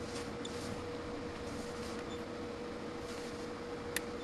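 Steady hum over a faint hiss, with a single sharp click about four seconds in as a button on a Klein Tools MM500 multimeter is pressed.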